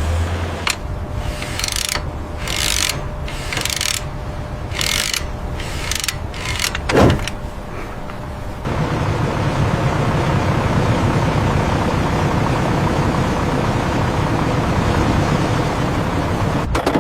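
Machinery noise: a run of short hissing bursts with clicks, roughly one every half second to a second, and a brief whoosh just after the middle. It then changes to a steady, low mechanical rumble.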